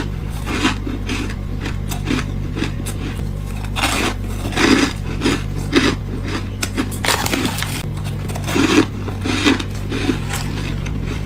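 Freezer frost being bitten and chewed, a string of squeaky crunches coming every half second to a second, over a steady low hum.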